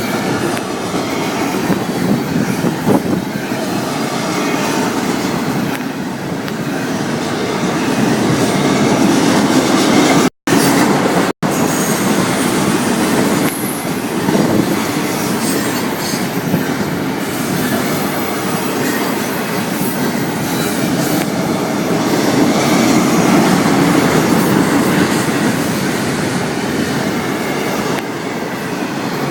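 Florida East Coast Railway freight train rolling past: a steady rumble of steel wheels on rail with clicking over the rail joints. The sound cuts out twice for an instant about ten seconds in.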